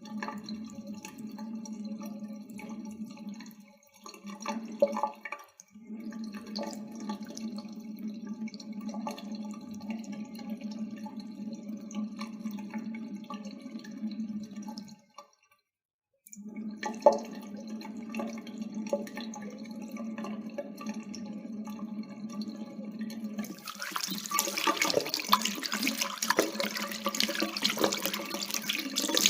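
Water running from a tap in a steady splashing stream. It cuts out briefly twice in the first six seconds and for about a second and a half around the middle. Near the end it turns brighter, hissier and a little louder.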